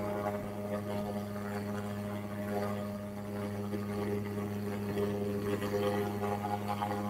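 A steady, unchanging low hum made of several fixed tones.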